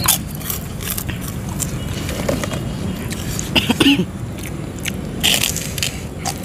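Close-miked eating sounds of bakso meatballs in chili sauce: chewing, wet smacks and sharp clicks, with a fork scraping and clicking as a chunk of the jumbo meatball is cut off.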